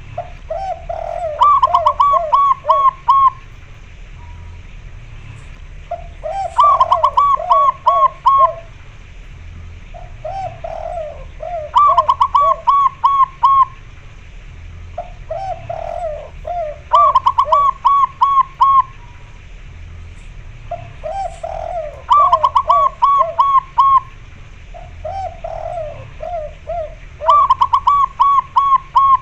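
Zebra doves (perkutut) cooing back and forth in staccato phrases. A run of four or five lower coos alternates with a run of about five higher, quicker coos, the exchange coming round about every five seconds.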